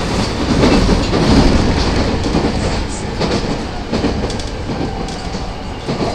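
Inside an E217 series commuter train car running along the line: a steady rumble of wheels on rail with clicks over the rail joints, loudest about a second in.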